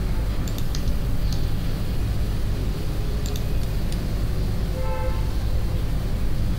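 Steady low background rumble, with a few light clicks and a short pitched toot like a vehicle horn about five seconds in.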